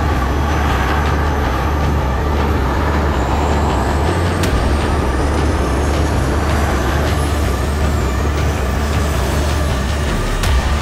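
Aero L-39 Albatros jet in flight: a steady, loud rush of airflow and single-turbofan engine noise over a deep rumble, with a faint high whine that slowly rises and then falls. It is heard from a camera mounted on the outside of the airframe.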